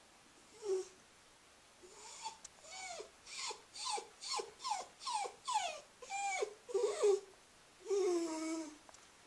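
Cairn terrier whining with a stuffed toy held in her mouth: one short whine, then a run of short whines, each falling in pitch, about two a second, ending in one longer whine.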